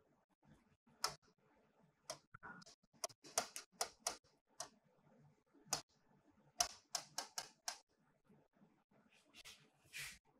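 Light taps and clicks on an interactive display screen, in irregular runs of several quick taps, as the slides and pen tools are switched.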